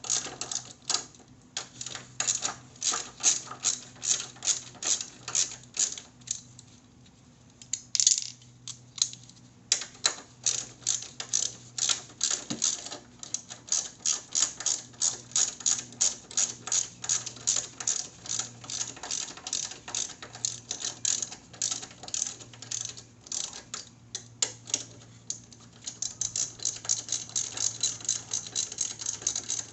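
Hand ratchet wrench clicking in quick, even strokes, about three clicks a second, with short pauses about six seconds in and again near twenty-four seconds.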